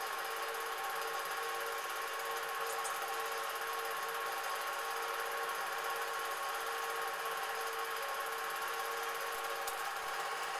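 Cine film projector running: a steady mechanical whirr with hiss and a faint constant whine.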